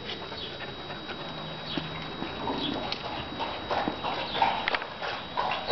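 Beagles moving about with their noses to the ground: a scatter of quick, uneven pattering steps and snuffling.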